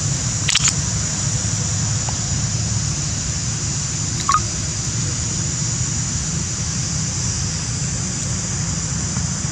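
Steady outdoor background noise, a low rumble under a high hiss, broken by a couple of brief clicks about half a second in and a short sharp chirp a little past four seconds in.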